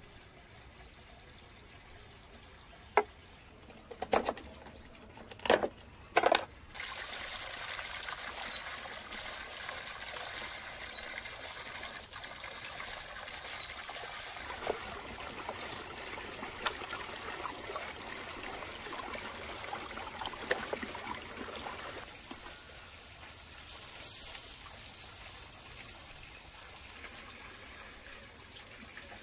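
A cleaver chopping through raw chicken on a wooden cutting board: four sharp chops a few seconds in. Then water pours steadily from a stone fountain spout while raw chicken is rinsed under it, getting quieter near the end.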